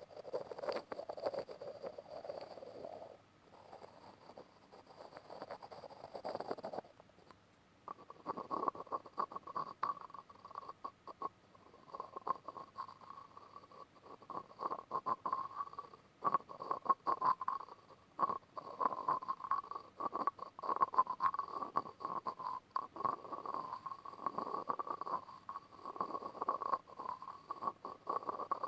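ASMR tapping and grinding: quick, irregular taps and scratching strokes on a hard object. After a short pause about seven seconds in, the strokes go on with a steady ring underneath them.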